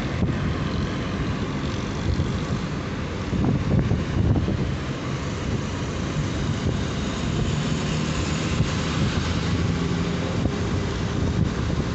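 Steady road noise and engine hum heard from inside a moving car, with other traffic passing close by.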